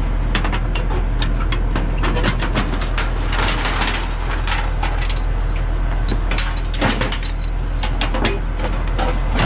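A semi truck's engine idling steadily under a run of short metal clinks and rattles from tie-down straps and hooks being put on to secure a car on the car-hauler trailer.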